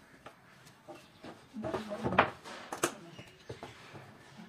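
A few sharp knocks and clatters of wooden boards being handled on a plywood work table, the loudest about two seconds in.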